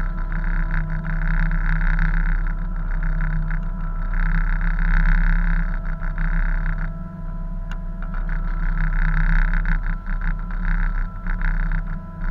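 A tug's engines running with a steady, rough drone. Over it, rushing noise from wind and sea swells and drops back in stretches of a few seconds.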